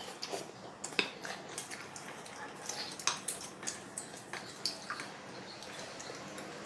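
Close-up mukbang eating sounds: wet chewing and lip smacks of someone eating spicy instant noodles with rice cakes, as irregular small clicks and squishes.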